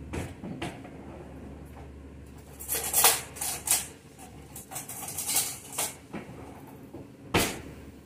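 Kitchen utensils and items clattering and knocking as someone rummages about looking for scissors. There are scattered clicks, a flurry of clatter about three seconds in, more around five to six seconds, and a single sharp knock near the end.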